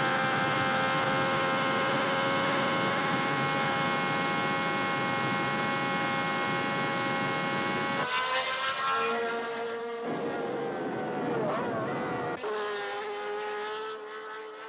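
Racing car engine held flat out at steady high revs, one unchanging note, as heard onboard along a fast straight. About eight seconds in the sound cuts to 1960s Formula One engines whose pitch rises and falls as the cars race past, with more abrupt cuts, fading away near the end.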